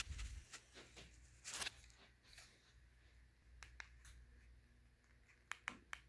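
Near silence with faint rustles of handling, then a few sharp clicks near the end as buttons are pressed on a ceiling fan's handheld remote.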